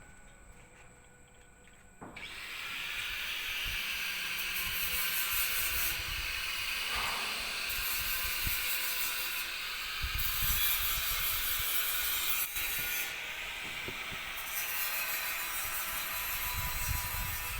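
An angle grinder working on steel, starting about two seconds in and then running as a steady, harsh hiss.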